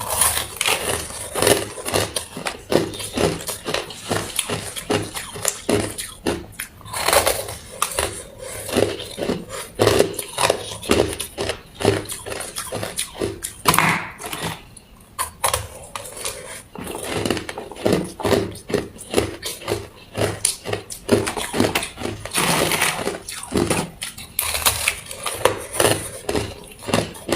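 Ice being chewed close to the microphone: rapid, irregular crunching and cracking of hard ice between the teeth, with a short lull about halfway.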